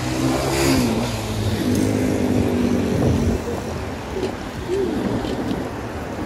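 Road traffic passing on the adjacent road, heard over rumbling wind noise from riding a bicycle. Several short pitched tones come through in the first three seconds, one of them falling in pitch.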